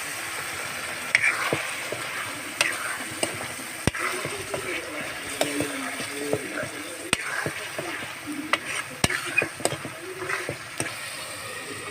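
Chicken frying in masala in a pan, sizzling while a utensil stirs and scrapes it, with sharp irregular clicks as it knocks against the pan.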